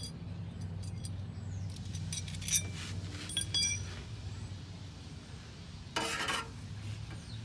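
Metal exhaust pipe clamps clinking together as they are handled, in two small clusters of light ringing clinks about two and three and a half seconds in. A brief scuffing noise comes near the end.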